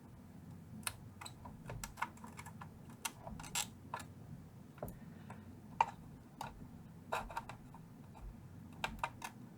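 Irregular small clicks and taps of hand tools and stiff wires being worked at inside a vintage tube amp chassis, over a faint steady low hum.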